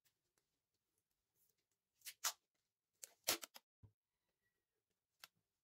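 Clear packing tape pulled off its roll and cut with scissors: two pairs of short rasping strips about two and three seconds in, then a couple of light clicks.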